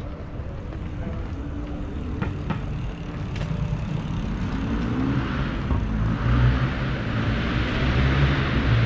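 Street traffic: a motor vehicle draws near, its engine and tyre noise growing louder over the second half.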